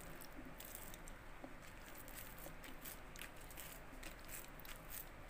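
Faint, irregular soft pats and squishes as a banana leaf presses a sticky mash of sweet potato, coconut and sugar flat on a wooden board.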